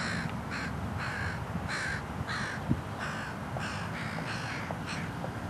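A bird calling over and over, short harsh calls at about two a second.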